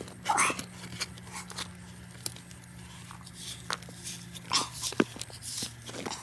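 A small hand shovel scraping and scooping loose, gritty soil, with crunching scrapes at irregular moments, the loudest just after the start and again about four and a half to five seconds in.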